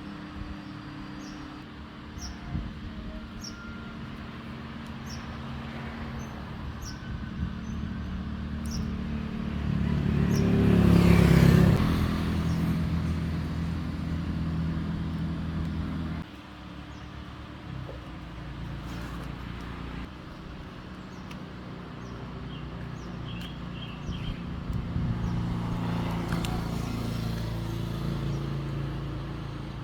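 A small engine running steadily, with a louder rushing surge around ten to twelve seconds in and a sudden drop in level about sixteen seconds in.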